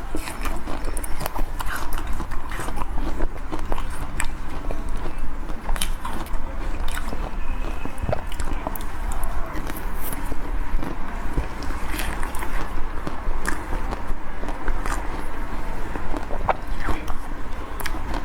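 Close-miked biting and chewing of a chocolate-coated Magnum ice cream bar: frequent sharp, irregular crackles as the crisp coating snaps, over a low steady hum.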